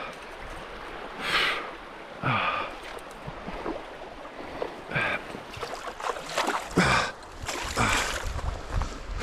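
A man breathing hard, with about six short, heavy breaths spaced a second or two apart.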